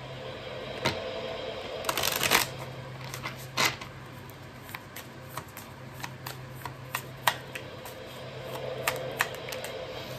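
Tarot cards being shuffled and handled: a quick run of riffling flicks about two seconds in, then scattered card snaps and taps. A steady low hum runs underneath.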